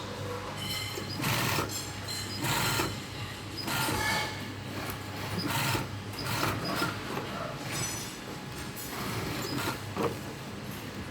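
Sewing machine stitching in short runs, each about half a second long, again and again, over a steady low hum.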